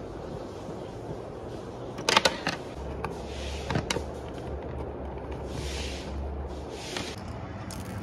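Screwdriver and hand work on a suitcase's pull-handle mounting as its screws are taken out: rustling and handling noise with a few sharp clicks and knocks of small metal and plastic parts, the loudest cluster about two seconds in and a few more near the end.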